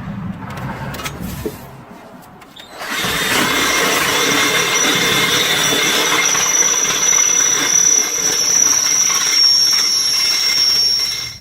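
Power drill boring through the metal spring perch, with a quieter, lower sound for the first few seconds. About three seconds in it runs loud with a steady, high-pitched squeal from the bit cutting metal, then stops suddenly at the end.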